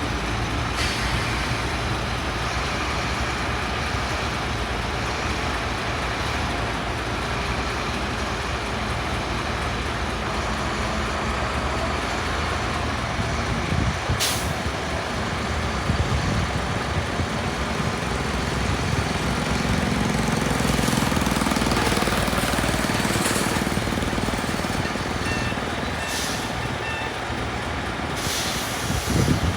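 Heavy construction trucks running, the engine noise swelling louder around the middle, with a few short sharp hisses in the second half.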